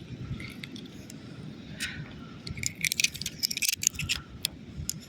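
Small seashells clicking and rattling against each other as they are handled, with a dense cluster of clinks around the middle, over a low rumble.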